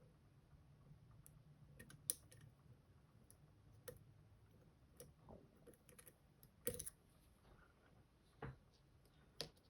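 Faint, scattered metallic clicks of lock picks working inside an M&C Color+ dimple lock cylinder, from the top-stack pins and spring sliders being pushed. The clicks are irregular, with a short cluster of clicks about seven seconds in.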